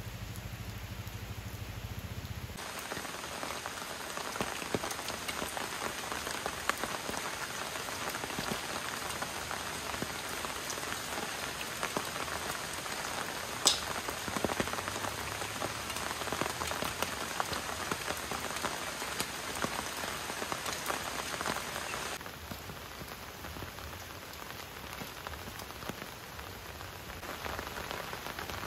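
Steady rain pattering, heavier from about three seconds in until about twenty-two seconds, then lighter. There is one sharp tick about halfway through.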